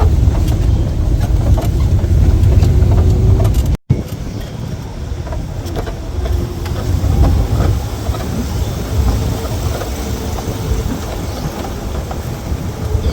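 Safari jeep engine running as the vehicle moves, with a heavy low rumble. The rumble is loudest for about the first four seconds, then breaks off suddenly and carries on at a lower level.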